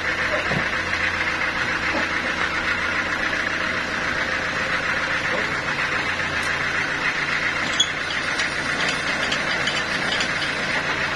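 Stationary engine driving a band sawmill, running steadily without cutting. A single sharp knock about eight seconds in.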